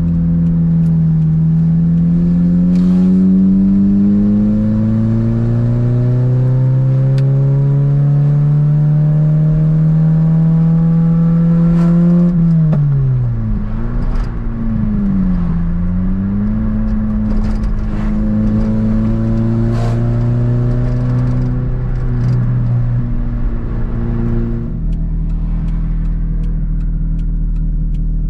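Toyota MR2's engine under way, its pitch climbing slowly for about twelve seconds as the car gathers speed, then falling away sharply. It rises again and holds a steady cruising note, and settles into a lower steady drone near the end.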